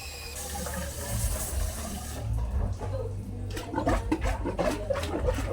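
Running water, with voices talking in the second half.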